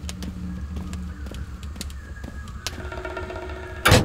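Quiet background score of held notes over a low drone. Near the end, knocking on a wooden door starts with a loud knock.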